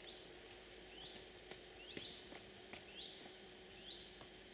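Faint, repeated short chirps of a small bird, each a quick rising note that levels off, a little more than one a second.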